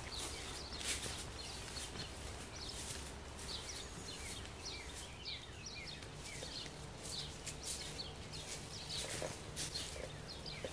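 Small birds chirping in the woods: many short, falling chirps, one after another. Along with them come footsteps on grass and dry leaf litter, a soft rustle with each step.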